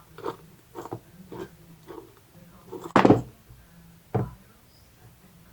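Small taps and clicks of carburetor parts and tools being handled during reassembly, with two louder knocks about three and four seconds in.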